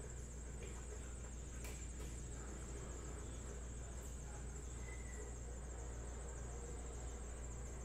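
Quiet room tone: a steady low electrical hum and a faint, constant high-pitched whine over light hiss, with one faint click about two seconds in.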